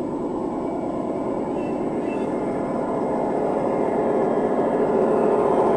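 A Gauge One (1:29 scale) model diesel locomotive running along garden-railway track with a steady rumble that grows louder as it approaches.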